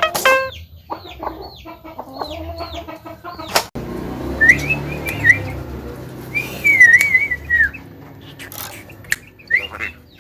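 Javan myna (jalak kebo) calling: a quick run of short hooked notes, then wavering whistles in the middle, with a sharp click about four seconds in and a few more near the end.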